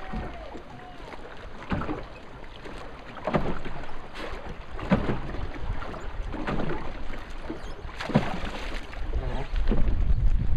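Water lapping and slapping against a floating dock, in short splashes about every one and a half seconds. Wind buffets the microphone near the end.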